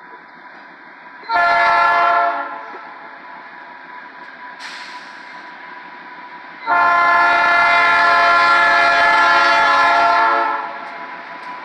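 GE B23-7 diesel locomotive's air horn sounding a short blast of about a second, then a few seconds later a long blast of nearly four seconds, over the steady running of the locomotive. This short-then-long pair closes the standard grade-crossing horn signal.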